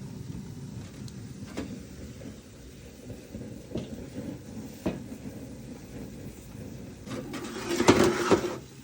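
Cooking sounds: a few light knocks over a steady low background noise, then a louder noisy burst lasting about a second near the end.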